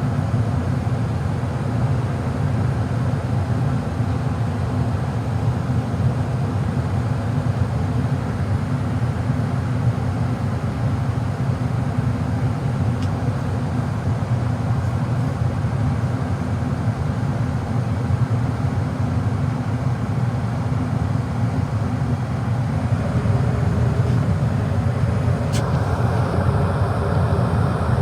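Gas furnace running with a steady low rumble, with a single short click near the end.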